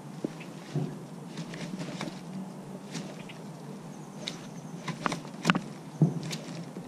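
Handling noise from a baitcasting rod and reel being worked with a jerkbait: scattered irregular clicks and knocks over a steady low background hiss.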